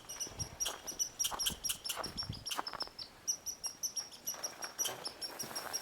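Truck engine idling a little high on a newly installed carburetor, with a fast, regular high-pitched chirping over it.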